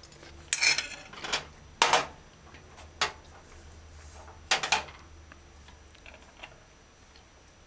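Metal fork scraping and clinking against a china plate as food is picked up, about five separate strokes in the first five seconds, then quieter.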